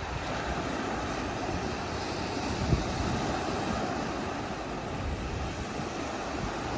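Sea surf washing steadily on the beach, with wind buffeting the microphone and a brief low gust thump about three seconds in.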